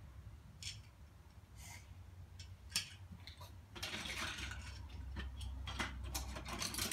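Plastic toy building blocks clicking and clattering as a child rummages through a plastic bin full of them. A few separate clicks come first, then a dense rattle of blocks about four seconds in, with more clicks after it.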